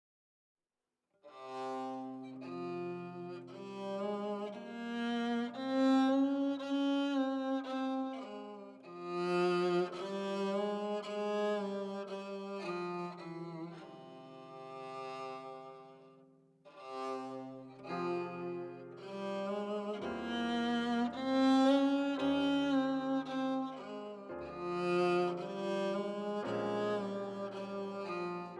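Ajaeng, a bowed Korean zither, playing slow, sustained melodic phrases that begin about a second in, with deeper low notes joining about two-thirds of the way through.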